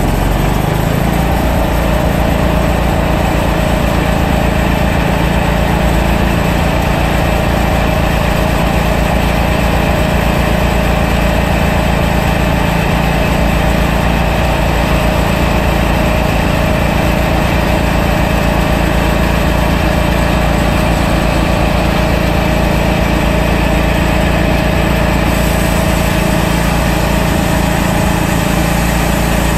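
Portable bandsaw sawmill's engine running steadily under load while the band blade cuts through a white oak log.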